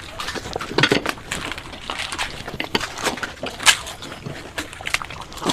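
Crisp panipuri (fuchka) shells being cracked and crunched as people eat them quickly, with irregular clicks and occasional clinks of dishes.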